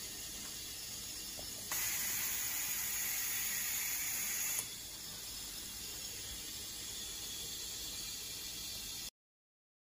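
Compressed air hissing from the robot's pneumatic tooling, a steady hiss that grows louder and brighter for about three seconds from around two seconds in, then settles back. The sound cuts off abruptly near the end.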